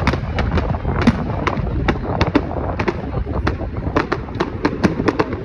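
Fireworks going off: a rapid, irregular string of sharp pops and bangs, several a second, over a low rumble.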